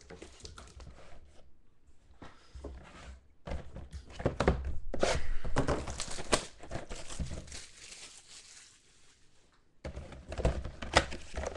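Plastic shrink-wrap being torn and crinkled off a cardboard trading-card box, with knocks of the box being handled. The crinkling is densest in the middle, goes quiet for a couple of seconds, then the handling starts again near the end.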